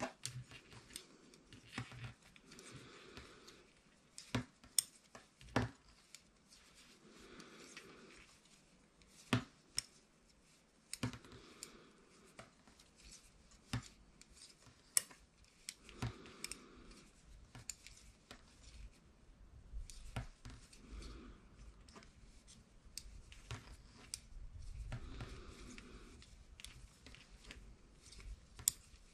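Knitting needles clicking and tapping against each other as stitches are worked, irregular sharp clicks a few seconds apart over soft rubbing sounds.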